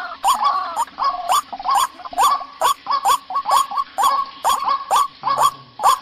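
White-breasted waterhen (ruak) calling: short, repeated calls, about two a second, each starting with a sharp click, as used in a bird-luring recording.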